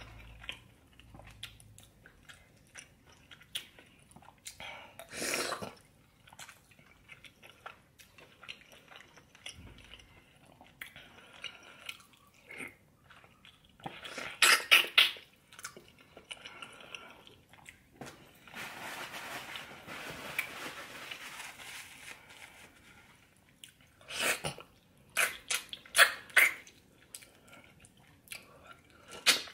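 A person eating braised oxtail stew close to the microphone: chewing, lip smacks and wet mouth sounds, with a few clusters of sharp, loud smacks and clicks and a longer stretch of wet sucking in the middle.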